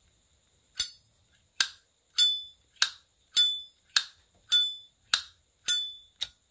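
Silver-plated Zippo lighter's hinged lid being flicked open and snapped shut over and over: about ten sharp metallic clicks, one every half second or so. Each click has a bright, bell-like ring ('âm vang, chuông chùa'), a resonant ring prized in a Zippo.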